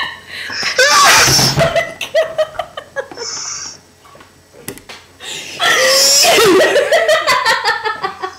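Hearty laughter in two bouts: one about a second in, and a longer one from about five and a half seconds to near the end, with a quieter lull between.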